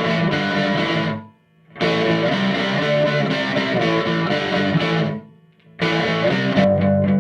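Music led by distorted electric guitar chords, which drops out to silence twice, about a second in and again about five seconds in, each time for roughly half a second before resuming.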